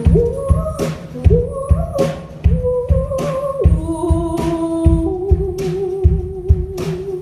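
A female singer singing a slow melody over a drum kit and bass, sliding into her notes and then holding a long note with vibrato from about four seconds in. The drums hit about twice a second.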